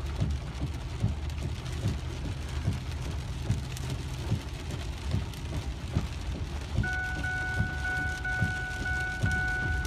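Rain pattering on a car's windshield and roof, heard inside the cab over the low rumble of the engine and tyres on the wet road. About seven seconds in, the seatbelt warning chime starts beeping steadily: the driver is not wearing his seatbelt.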